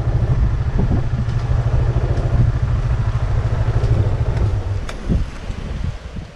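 Motorcycle engine running at low speed, a steady fluttering rumble that weakens about five seconds in and fades out near the end.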